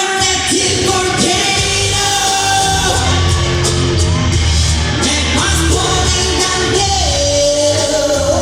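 Live amplified pop song played over a loud sound system, with a sung lead vocal gliding between notes over a steady bass line. Audience members shout along.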